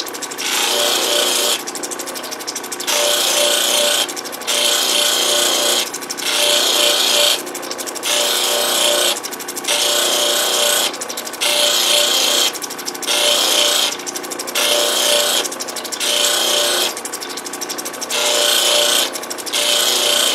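Lapidary wheel machine's motor running steadily while the opal is pressed to the spinning wheel and lifted off again, about every second and a half, each stroke a loud hiss of stone rubbing on the wheel. This is the last wheel of the cutting sequence.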